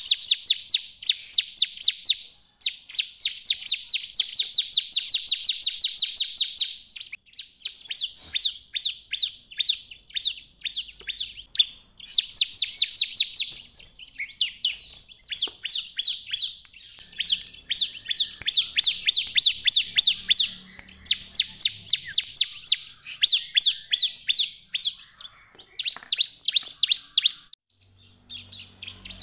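Bar-winged prinia (ciblek) in full song: long, rapid trills of sharp high notes, some running for several seconds, broken by short pauses.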